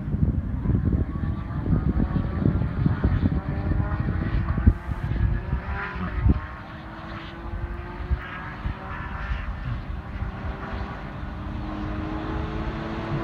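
Distant Porsche sports car engine running at speed, its note rising slowly as it pulls down the track. Wind buffets the microphone, strongest in the first half.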